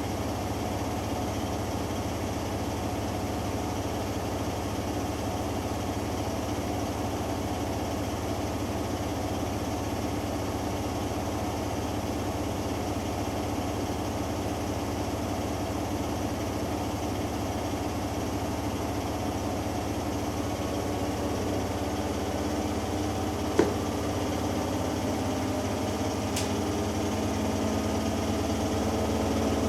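Hoover Dynamic Next washing machine in its final spin cycle, the drum and motor running with a steady hum. There is a single sharp click about two-thirds of the way through, and the hum shifts in pitch and grows slightly louder near the end as the spin speed changes.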